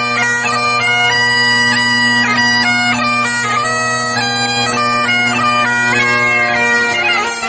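Great Highland bagpipe playing a tune: the chanter melody steps from note to note over two steady drone pitches.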